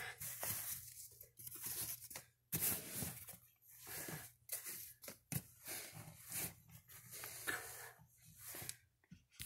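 Fabric and a sports bag rustling and scraping in irregular bursts as gear is stuffed into the bag, handled close to the phone's microphone.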